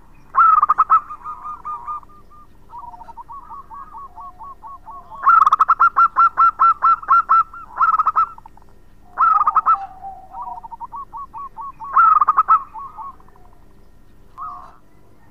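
Zebra dove (perkutut) singing: repeated phrases of quick, staccato coos. Several loud phrases alternate with softer strings of rolling coos.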